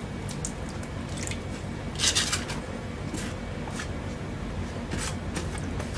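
Flat metal putty blade scraping and pushing through damp wall-putty powder on a stone floor: a few short scraping strokes, the loudest cluster about two seconds in, as the powder is worked with water into a paste.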